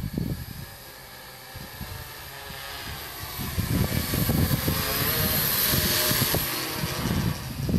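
Homebuilt quadcopter's motors and propellers buzzing. The buzz grows loud as it flies in close past the microphone, then eases a little near the end, its pitch wavering with the throttle over a gusty low rumble.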